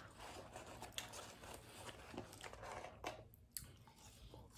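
Faint chewing with small crunches: a man eating a spicy chicken bacon cheese sandwich, mouth close to the microphone.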